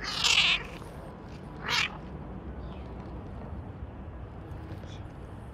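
Domestic cat meowing twice: a half-second meow right at the start and a shorter one just under two seconds in.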